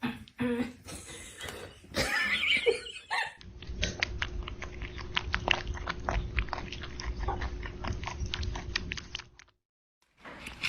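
Irregular animal sounds for about three seconds, then a dense run of rapid crunching clicks from an animal chewing. The chewing lasts about six seconds and cuts off suddenly.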